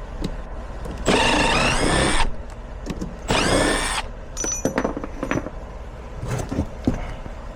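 Cordless drill run in two short bursts, its motor whine rising in pitch each time it spins up, followed by small clicks and knocks of metal parts being handled.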